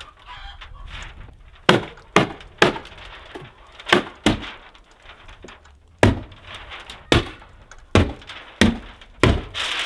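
Sharp hand-tool strikes fastening housewrap to a cabin wall: about a dozen single cracks, irregularly spaced and often in quick pairs.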